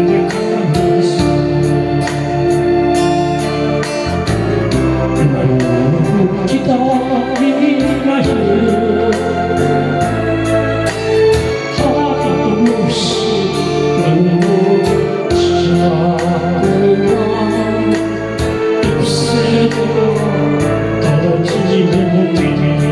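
A solo voice singing a slow Korean ballad over electronic organ and keyboard accompaniment, with a steady light drum beat.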